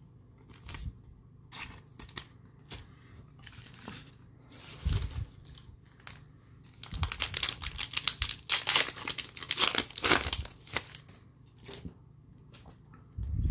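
Foil wrapper of a Pokémon Shining Fates booster pack crinkling and tearing as it is opened. This is a dense run of crackling over about three seconds in the second half, with a few scattered light clicks before it.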